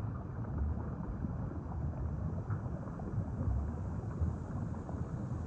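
A steady low rumbling noise that swells and fades a little, with no clear pitch or rhythm: an ambient sound-design bed laid under the microscope footage.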